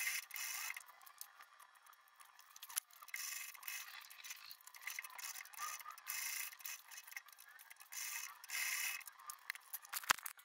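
Leather sewing machine running in short bursts of stitching, with pauses while the bag is repositioned. A single knock near the end.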